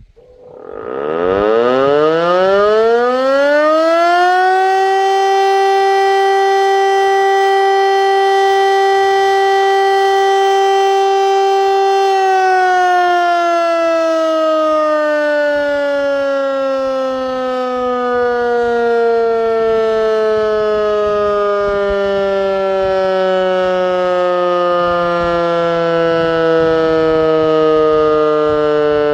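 Hörmann DS977 electro-mechanical civil defence siren sounding its weekly test: it spins up with a rising wail for about four seconds, holds a steady loud tone until about twelve seconds in, then slowly winds down in pitch as it coasts.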